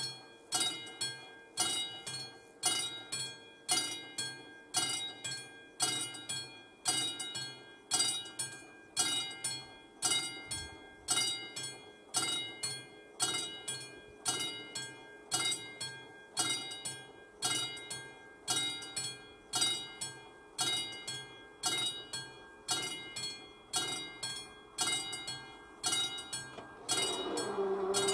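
Railway level-crossing warning bell of an AŽD 71 crossing ringing steadily, a little faster than once a second, while the warning lights flash. Near the end a louder rushing noise with a steady hum joins in.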